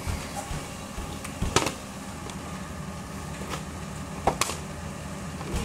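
Partly filled plastic water bottle being handled in the hands, giving a few short clicks and crinkles over a steady low hum.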